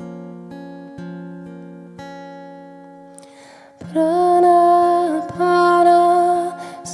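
Acoustic guitar strumming slow chords, about one strum a second. About four seconds in, a woman's voice comes in, singing long held notes of the mantra.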